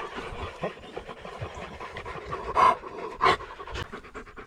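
German Shepherd panting rapidly at close range, a quick even run of breaths, with two louder breathy bursts a little past the middle.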